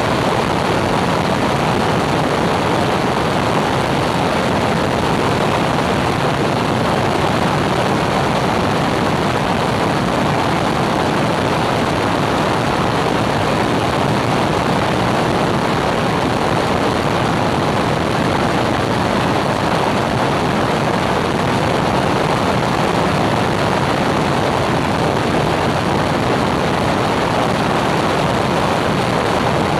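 Small airplane in cruise: the steady drone of its engine and propeller mixed with rushing air noise, unchanging throughout.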